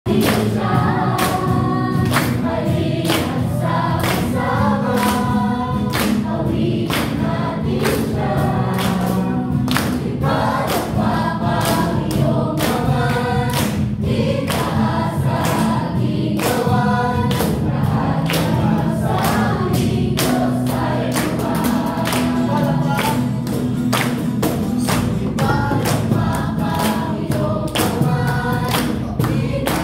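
A group of young people singing a worship song together in unison, clapping their hands on a steady beat.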